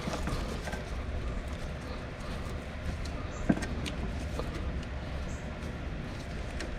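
Small clicks and knocks of hand tools and parts being handled under the hood while an ignition coil is taken off, the sharpest about three and a half seconds in, over a steady low rumble.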